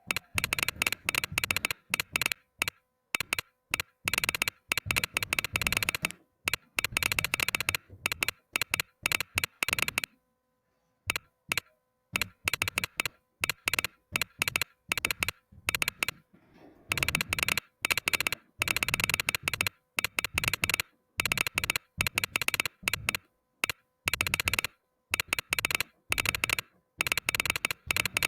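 Typing on a mechanical keyboard with Gateron Red linear switches: rapid key clicks in bursts of a second or two, with short pauses between.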